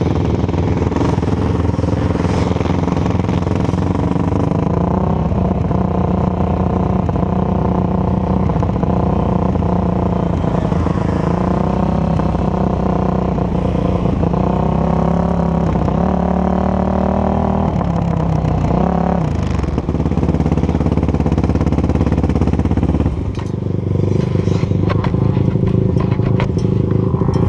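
ATV engine running close to the camera, a steady engine note whose pitch steps up about five seconds in, with a quick rev rise and fall near two-thirds of the way through and a shift in the note soon after.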